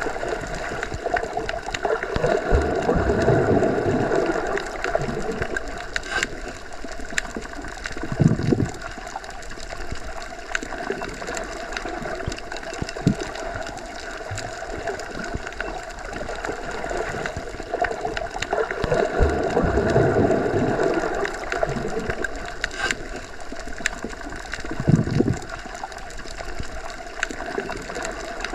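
Underwater ambience: a steady rush of water heard from beneath the surface, swelling slowly twice, with a brief low surge about eight seconds in and again near the end.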